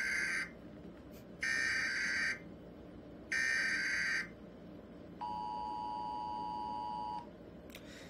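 Emergency Alert System header: three bursts of SAME digital data, each a harsh warbling screech about a second long, the first already under way. Then the two-tone EAS attention signal sounds as a steady buzzing tone for about two seconds.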